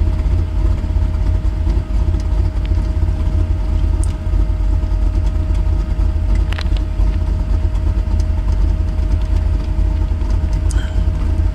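Truck engine running steadily, heard from inside the cab: a heavy low rumble with a thin steady whine above it.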